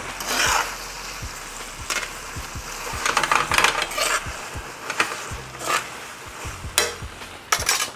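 Metal tongs tossing spaghetti and shrimp in a hot stainless-steel pan with a raised hexagon pattern: irregular clinks and scrapes of tongs on the pan, over a light sizzle of the sauce.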